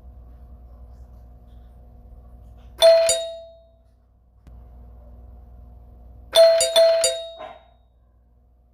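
Doorbell ringing: one ring about three seconds in, fading over about a second, then three quick rings a little after six seconds. A faint steady hum sounds between the rings and breaks off when each ring starts.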